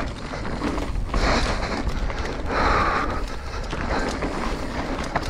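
Wind buffeting the camera microphone as a mountain bike descends a dry dirt trail at speed. Tyre hiss over loose dirt swells twice, and the bike rattles over bumps.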